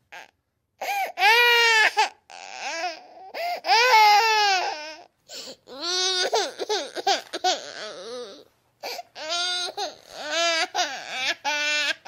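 Baby crying: a run of high, wavering wails broken by short gasps and sobbing catches.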